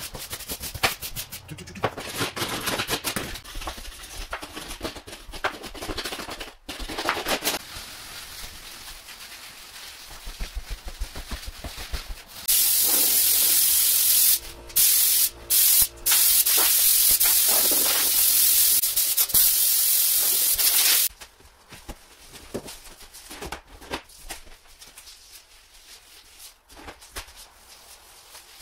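Irregular hand-sanding strokes scraping and rubbing over a wooden floor. About twelve seconds in, a hand-held power sander starts and runs loudly as a steady hiss for about eight seconds, cutting out briefly a few times, then stops. Quieter rubbing strokes on the floor follow.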